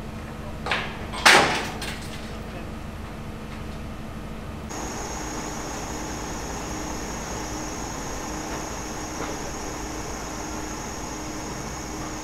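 Steady hum of running machinery, with two sharp knocks about a second in, the second louder and ringing briefly. A few seconds in, the background changes abruptly to a different steady machine hum with a thin high whine.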